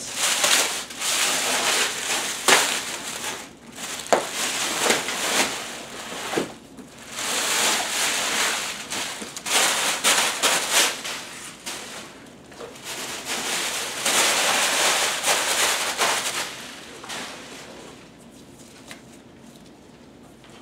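Thin plastic wrapping bag crinkling and rustling in irregular bursts as it is pulled off a speaker and bunched up by hand, dying down over the last few seconds.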